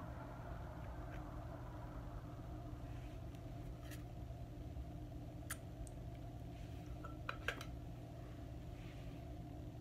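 Quiet room tone: a steady low hum with a few faint, short clicks scattered through it.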